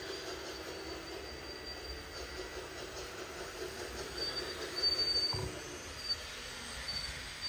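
Radio-controlled model construction machines running: small motors and gearing make a steady mechanical whirr, with a thin high squeal that comes and goes in the second half. There is a short knock a little after five seconds.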